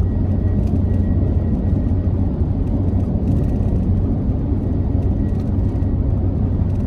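Steady road noise of a car driving on the highway, heard from inside the cabin: an even low rumble of engine and tyres, with a faint steady whine above it.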